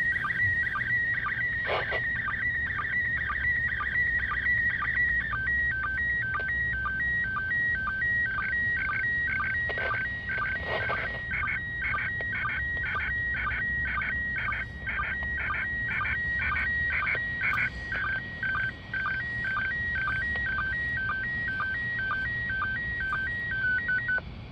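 Slow-scan television (SSTV) picture signal from the International Space Station coming out of a Realistic PRO-43 scanner's speaker. It is a high warbling tone chopped by a regular sync pulse about two to three times a second, over faint hiss. The scanner is tuned 20 kHz off frequency, which the owner says left the picture incomplete.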